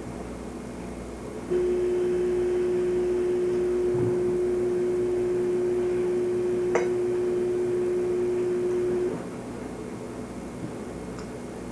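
A steady single-pitched tone that starts suddenly, holds for about seven and a half seconds and cuts off, with one sharp click partway through, over a steady low background hum.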